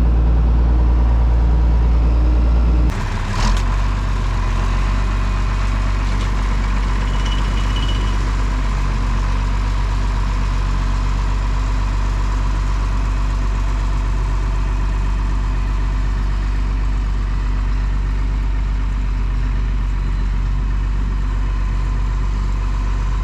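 Farm tractor engine running steadily under a light load. About three seconds in there is a short knock and the engine's deep note drops a little, then holds.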